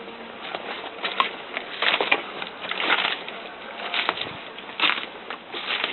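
Irregular scuffing or crunching sounds, about one a second.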